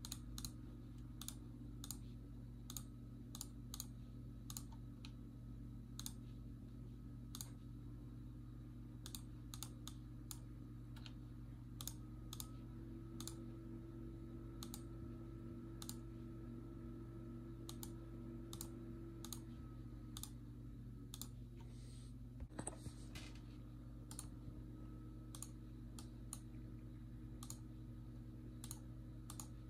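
Faint, irregular clicking at a computer, roughly one to two clicks a second, over a steady low electrical hum, with a slightly heavier knock about two-thirds of the way through.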